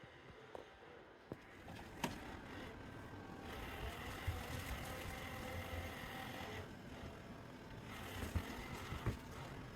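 Roomba robot vacuum running, a steady motor and brush whir that grows louder about three and a half seconds in, dips briefly, then comes back. A few sharp knocks sound over it, one about two seconds in and two more near the end.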